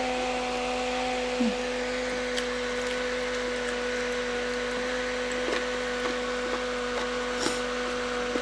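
Small handheld battery fan running with a steady hum. A few faint clicks from eating with the hands.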